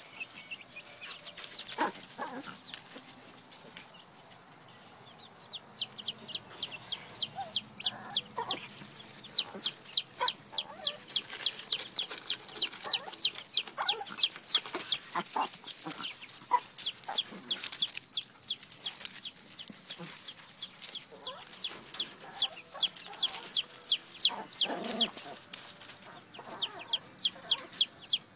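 Young chicks peeping: a long, regular series of short, high cheeps, each sliding down in pitch, about two or three a second, starting a few seconds in and carrying on with only a brief break near the end.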